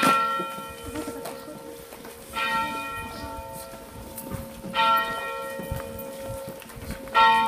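A single church bell struck four times, about two and a half seconds apart, each stroke ringing on and slowly fading into the next.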